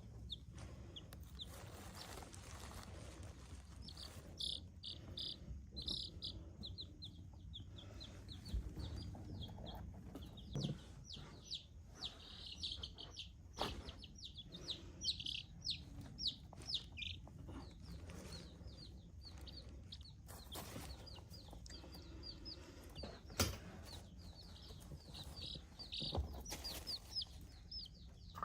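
Buff Orpington chicks peeping: a steady stream of short, high peeps, several a second, with a few sharp knocks in between.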